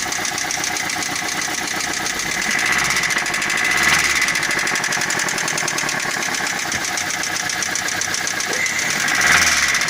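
Geely MK's 1.6-litre petrol engine running with a rapid, diesel-like knocking rattle. It rises briefly twice, about four seconds in and near the end. The owner suspects a connecting-rod knock or possibly the valves.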